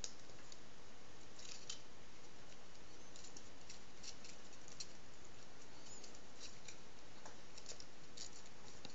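Faint crackling and rustling of an adhesive-coated sandpaper strip being pressed and wrapped by hand around a small wooden drum, as scattered light ticks over a steady background hiss.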